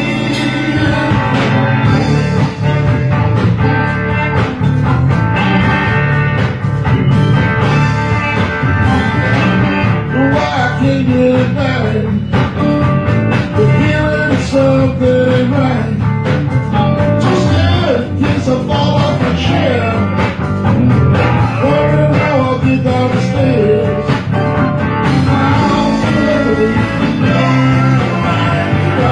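Live band playing: electric guitars, bass guitar, drums, keyboards and saxophone together, with a lead line bending and sliding over a steady beat.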